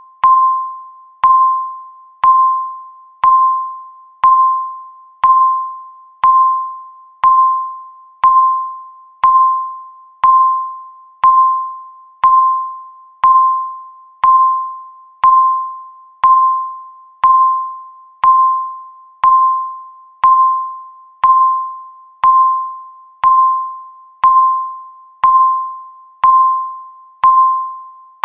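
Countdown timer beep sounding once every second: a single clear tone that starts sharply and quickly fades before the next one.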